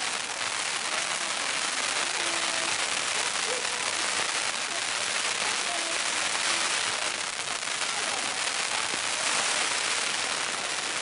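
Strings of Chinese firecrackers going off in a dense, continuous crackle of rapid small pops.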